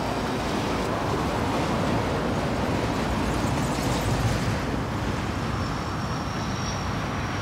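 A 2004 Toyota Hiace van's engine running as the van drives slowly up, over steady traffic noise from a busy road. A faint high whistle comes in about two-thirds of the way through.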